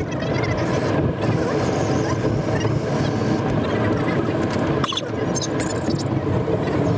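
A car driving along, its road and engine noise heard from inside the cabin as a steady rumble.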